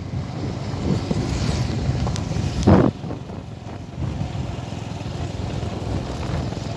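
Wind buffeting the microphone over the low running of a motorcycle taxi on the move, with a short louder burst about three seconds in.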